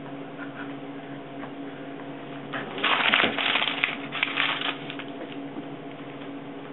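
A loud burst of rustling and scuffling, lasting about two seconds from roughly two and a half seconds in, as a puppy and a cat tussle on a fabric pet bed. A steady low hum runs underneath.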